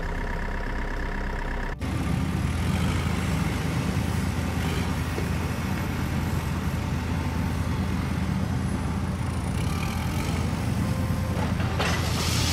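Engine sound effect of a heavy vehicle idling steadily, laid over play with an unpowered plastic toy wheel loader. It becomes louder and fuller after an abrupt change about two seconds in, and a short rush of noise comes near the end.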